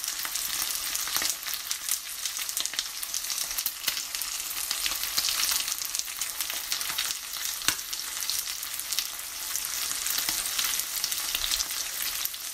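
T-bone steak sizzling in melted butter in a frying pan as it sears on its first side: a steady hiss full of small pops and crackles.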